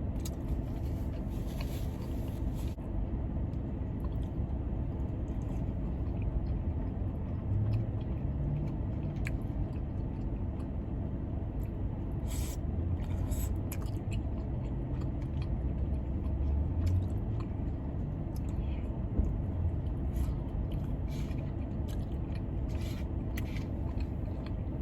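Steady low hum of a car's air conditioning and running engine inside the cabin, with chewing and short clicks of eating now and then.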